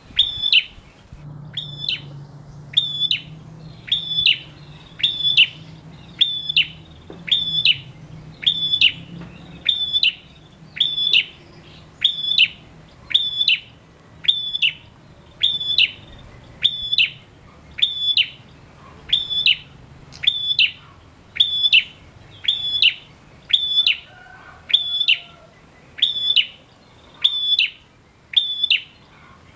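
Male prenjak, the small rufous-faced tailorbird known as the ashy tailorbird, calling a single sharp, high note over and over at an even pace of about one call a second. This is the persistent 'gacor' calling that keepers play to get silent prenjak singing.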